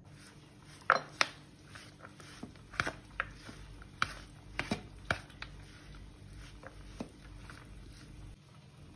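Metal spatula knocking and scraping against the dish while cooked rice is mixed with a fried peanut and curry-leaf tempering. The knocks come in an irregular string and are loudest about a second in.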